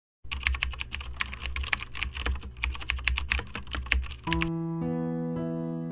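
Fast, dense clicking of keyboard typing over a low hum. It stops suddenly about four seconds in, as slow keyboard music with long held notes begins.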